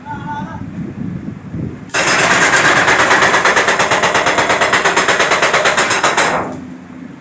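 Jackhammer pounding concrete in a rapid, steady run of blows that starts abruptly about two seconds in and stops near the end. An engine runs underneath.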